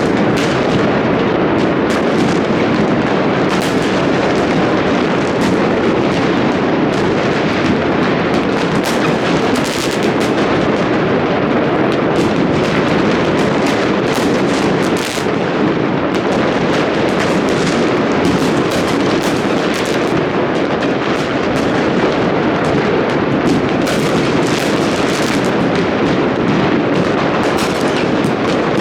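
New Year fireworks and firecrackers going off in a dense, unbroken barrage: many overlapping bangs and crackles with no pause between them.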